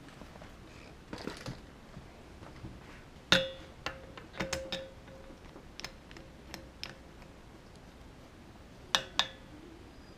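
Metal clinks as a scuba regulator's first stage is fitted onto the tank valve: one sharp clink that rings briefly a little past three seconds in, a few lighter clinks about a second later, and two more close together near the end. A soft rustle of hoses about a second in.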